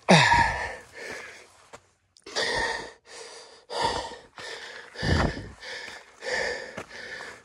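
A hiker breathing hard while climbing a steep trail: heavy in-and-out breaths about once a second. The loudest is a breath right at the start that falls in pitch.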